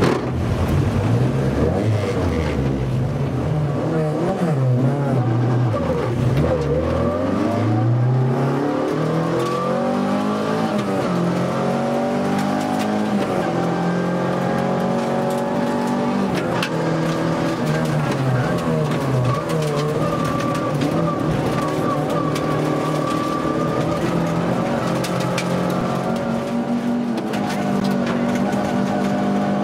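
Opel Corsa FA6 rally car's engine heard from inside the cabin, pulling hard from the start: the revs climb and drop back with each gear change over the first eight seconds or so, then hold high with smaller rises and falls as the car drives a gravel stage.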